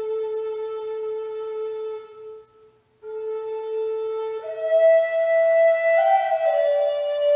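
Solo flute playing slow, long-held notes. One low note is held, fades out for a short breath about two and a half seconds in, and is taken up again. It then steps up to higher held notes about four and a half seconds in, and moves again near the end.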